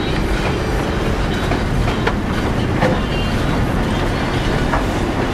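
Road noise heard inside a moving car's cabin on a snow- and slush-covered street: a steady low rumble of tyres and engine, with a few light clicks scattered through it.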